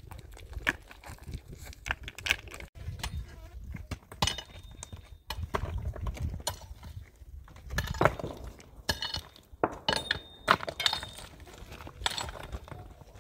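Irregular knocks and clinks of hard objects being handled and struck together, a few of them ringing briefly.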